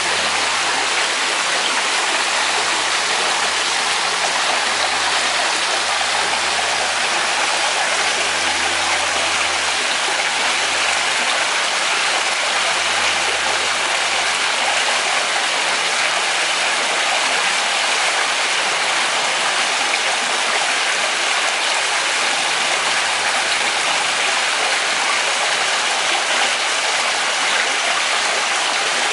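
Water from a rock pool waterfall spilling steadily into a swimming pool.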